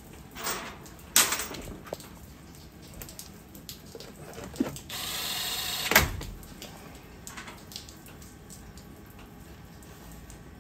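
Milwaukee Fuel cordless driver running for about a second, driving a screw into the top cover of an electric unicycle, and ending in a sharp click. A few clicks and knocks of handling come before it.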